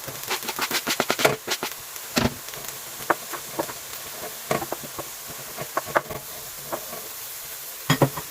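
Pork strips, garlic and onion sizzling in hot oil in a pan, with a spatula clinking and scraping against the pan in irregular strokes as they are stir-fried; a double knock near the end is the loudest.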